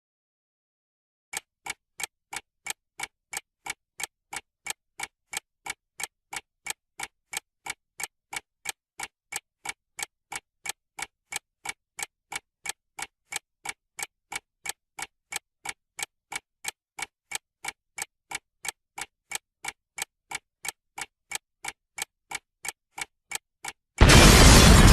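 Time bomb sound effect: a clock ticking evenly, about two ticks a second, starting about a second in. Near the end comes a loud explosion, the loudest thing here, still dying away.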